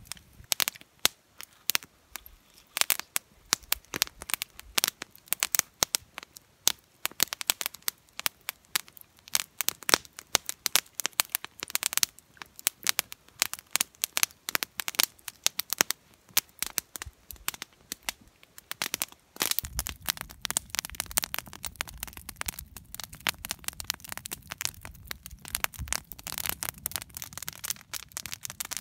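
Wood campfire crackling and popping, a dense run of sharp snaps. About two-thirds of the way through, a steady low rumble joins in under the crackle.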